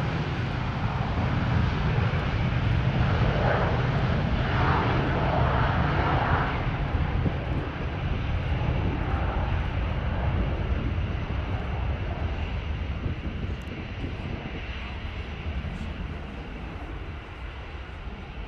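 Private jet's engines passing close by: a loud, deep rumble with a hiss over it, strongest in the first six seconds, then slowly fading away.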